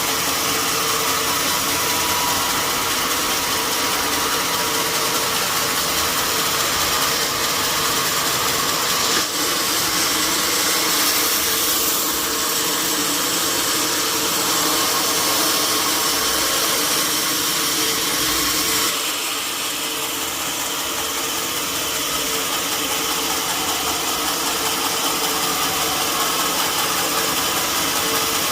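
Sawmill machinery running steadily, a continuous mechanical hum with a hiss over it; the sound shifts and drops slightly about nineteen seconds in.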